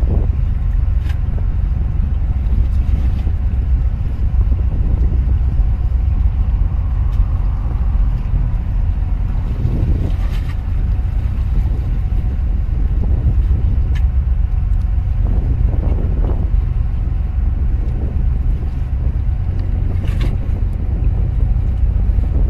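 A boat's engine running with a steady low rumble, with a few faint clicks.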